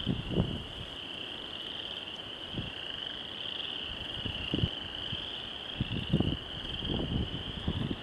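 A steady, high-pitched chorus of frogs calling at night, a continuous wavering trill. A few short, soft low thumps sound now and then under it.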